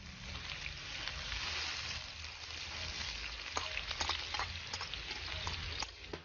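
Chopped onion sizzling as it fries in hot oil in a wide steel pan, a steady dense hiss with scattered sharp pops.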